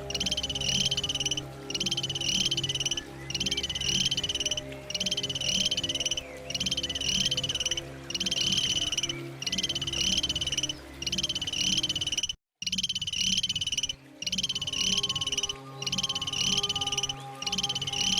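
An animal's rapid, high-pitched trilled call repeated over and over, each trill about a second and a half long with a short gap between. The sound drops out completely for a moment about two-thirds of the way through, then the trills carry on.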